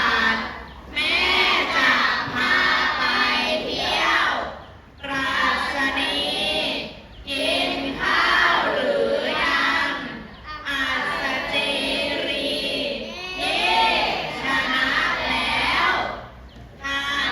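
A class of children singing together in unison, in phrases broken by short pauses.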